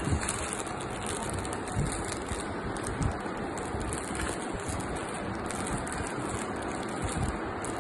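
Plastic packaging rustling and crinkling as hands handle a saree in its plastic wrap, with a few soft low bumps, over a steady noisy hiss.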